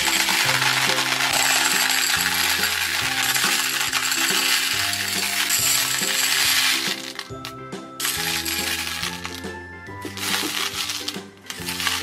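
Small hard round candies pouring out of a glass bowl into a plastic toy bathtub, a dense continuous clatter that thins to scattered clicks about seven seconds in as the pouring stops and hands stir the candies. Background music plays underneath.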